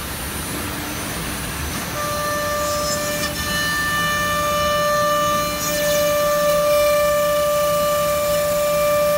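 Holztek Pro-R1V9 CNC nesting router's spindle cutting a board, a steady high whine over the rush of dust extraction. The whine is missing for about the first two seconds, then comes in and holds, a little louder.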